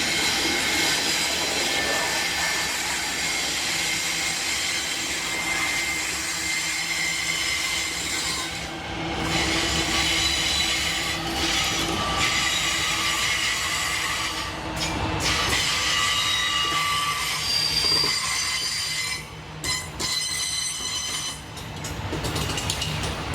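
Freight train rolling past, its wheels squealing in several high, steady tones over the rumble of the wagons. A little before the end the squeal breaks up into short gaps.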